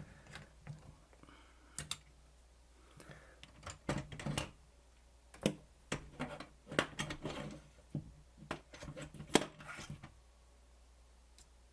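Irregular clicks and light clatter of small hand tools and parts being handled on a workbench, as when rummaging for a screwdriver, over a low steady hum.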